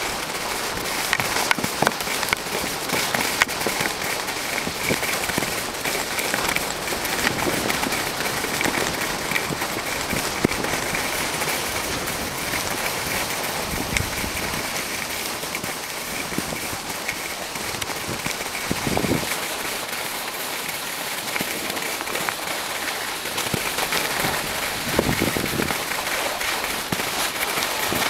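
Skis sliding and scraping over hard-packed, tracked snow: a continuous crackling hiss dotted with sharp clicks, with a few short low rumbles of wind on the microphone.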